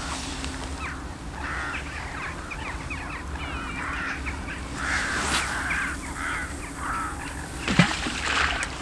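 A flock of birds calling, many short overlapping calls for about six seconds, then a single thump near the end.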